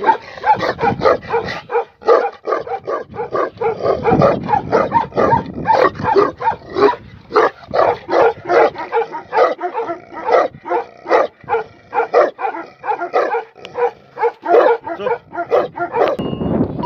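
Tibetan Mastiff barking over and over, about three barks a second, with the barking stopping shortly before the end.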